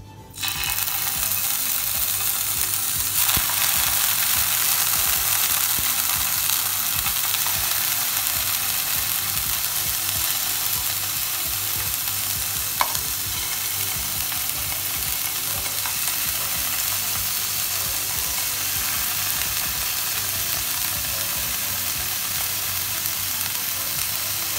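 Teriyaki-marinated chicken pieces sizzling in hot oil in a nonstick frying pan. The sizzle starts suddenly about half a second in as the first piece goes in, swells a little around three seconds as more pieces are added, then holds steady. A single sharp click comes about halfway through.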